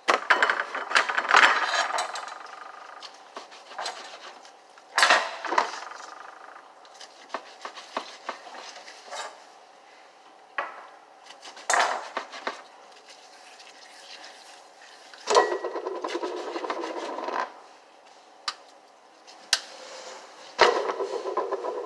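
Toy cookware and utensils being handled: scattered clicks and knocks, several clattering bursts, and two longer spells of scraping, the second starting near the end.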